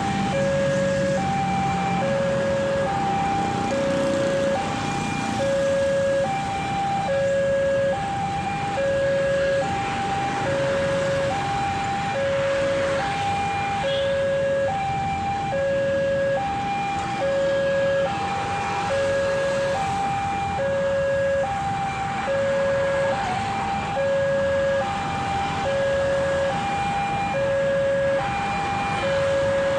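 Railway level-crossing warning siren sounding a hoarse electronic tone that switches on and off at a steady rhythm, about once every second and a half.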